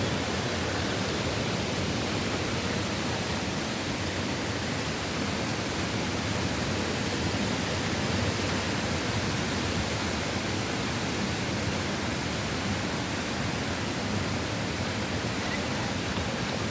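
Steady rushing noise of wind with light rain as a hurricane builds.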